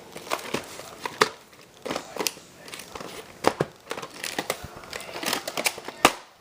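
Irregular crinkling, rustling and sharp plastic clicks of a VHS cassette and its case being handled.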